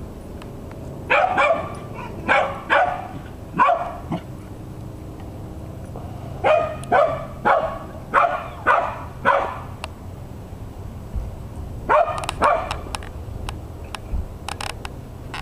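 A dog barking in three runs of short barks, about two a second: five near the start, a longer run of seven in the middle, then two more, with a few faint ones near the end.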